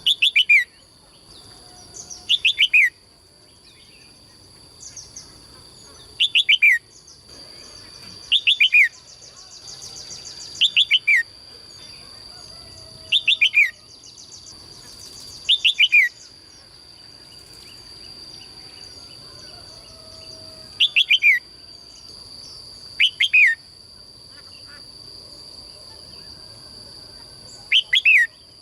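A songbird repeating a short call of three or four quick falling notes, about every two to three seconds with a few longer pauses. A steady high-pitched whine runs underneath.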